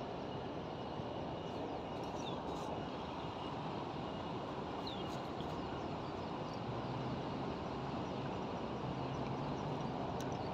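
Steady outdoor background noise by the water, a low hum joining about six and a half seconds in, with a few faint high chirps.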